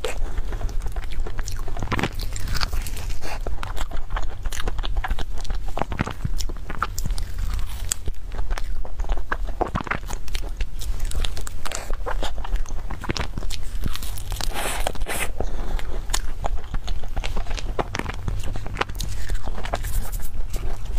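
Biting and chewing of a cream puff with a crisp, crumbly crust: many sharp crunching crackles throughout, over a steady low hum.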